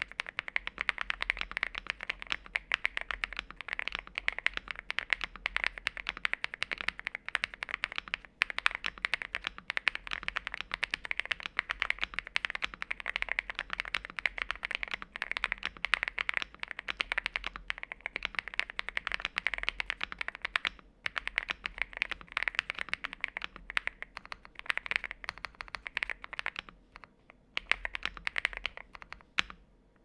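Steady fast typing on a Zoom 75 mechanical keyboard fitted with KTT Hyacinth linear switches and XDA-profile PBT keycaps: a dense run of keystrokes, with a couple of brief pauses in the second half.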